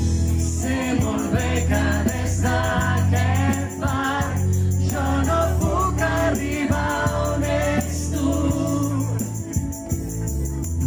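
Live dance band playing a slow song over sustained bass notes, with many voices singing the melody together in chorus.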